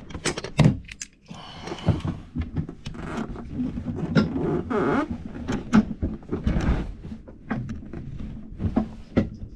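Irregular knocks, clunks and rustling from close handling, with a clatter of hard objects against wood and metal.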